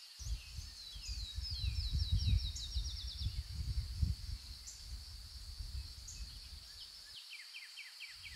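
Wind rumbling on the microphone in gusts, with a bird giving a fast series of down-slurred high notes about a second in and again near the end, over a steady high thin tone. The wind rumble cuts out abruptly about seven seconds in.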